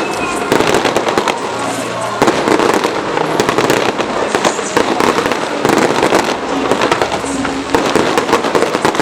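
Fireworks bursting in quick succession overhead, a dense, unbroken run of bangs and crackles.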